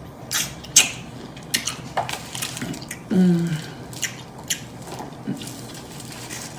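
Close-up eating sounds: loud, wet lip smacking and chewing, a scatter of sharp smacks and clicks. About three seconds in, a short hummed sound falling in pitch.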